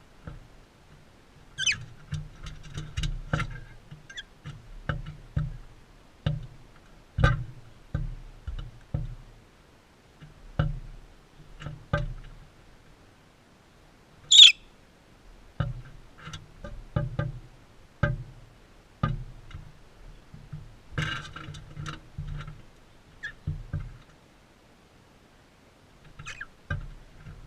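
Parrots feeding right at the camera: irregular taps and knocks of beaks and feet on the feeder, each with a dull thud. A few short, sharp calls come through, the loudest about fourteen seconds in.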